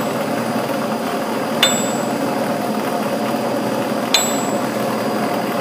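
Steady running noise of a makeshift pipe-rotating rig and heat gun, with a sharp metallic clink that rings briefly, twice, about two and a half seconds apart, as the pipe turns.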